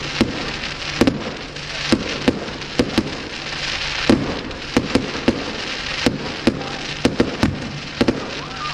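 Aerial firework shells bursting overhead in a rapid, irregular series of sharp bangs, about two a second, over a continuous hiss.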